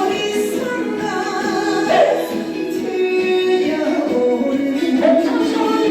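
Korean pop song with a woman singing a held, sustained melody over a full band backing.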